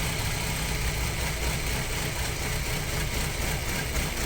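Audi A4 B6's 2.0 ALT four-cylinder petrol engine idling steadily on a cold start at low revs, with knocking under the valve cover. The owner suspects a stretched or slipping cam chain between the two camshafts, a broken tooth, or the camshaft phaser, and says the knocking occurs only when the engine is cold.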